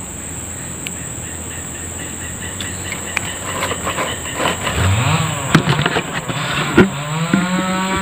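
An engine revving nearby, its pitch rising about halfway through and again near the end, over a steady high drone of insects, with sharp clicks scattered through the second half.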